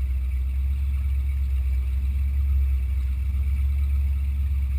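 Performance boat's engine running steadily at low speed, a deep, even rumble with no change in pitch.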